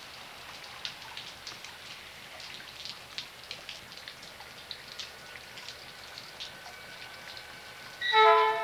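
Steady rain with scattered drops ticking close by. Near the end a diesel locomotive horn sounds, a loud multi-note chord.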